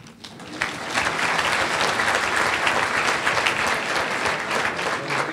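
Audience applauding, the clapping swelling over the first second and then holding steady.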